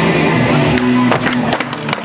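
Background music with a steady bass line. From about a second in, several sharp clacks of a skateboard hitting the floor as the rider bails and the board flips away.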